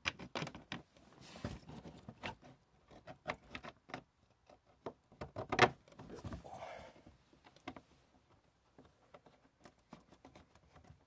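Snowmobile windshield and hard plastic trim clicking and rubbing as they are pressed into place by hand: irregular small taps and scrapes, with one sharper click about five and a half seconds in.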